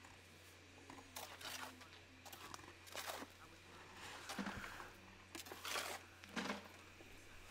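Faint, irregular scrapes of a long-handled tool dragged through concrete mix in a plastic wheelbarrow tub: several strokes a second or so apart, over a low steady hum.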